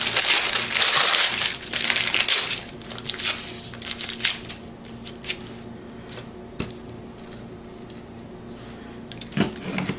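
Thin deli paper crinkling and being torn into small pieces by hand, loudest in the first two and a half seconds, then a few light rustles and clicks as the pieces are handled. A faint steady hum sits underneath in the quieter second half.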